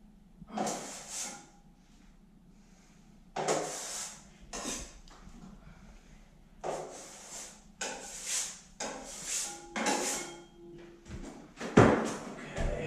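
A drywall knife scraping freshly mixed setting-type joint compound out of a plastic bucket and loading it onto a hawk. The scrapes come one after another at irregular gaps, with near quiet between them and a couple of heavier knocks near the end.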